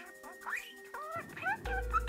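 Grey budgerigar chirping: a run of quick chirps that slide up and down in pitch, over background music with a low bass note near the end.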